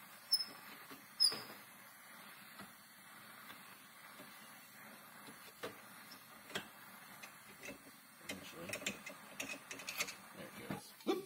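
Handheld gas torch hissing steadily as its flame heats the threaded joint of a motorcycle fork lower, to loosen the thread sealant, with scattered light clicks and two short high squeaks about a second in.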